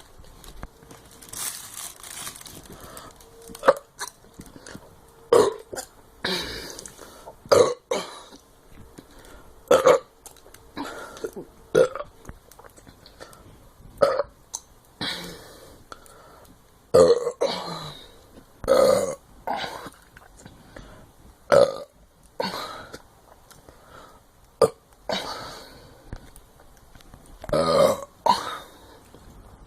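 A person burping deliberately over and over: about twenty short burps, one every second or two.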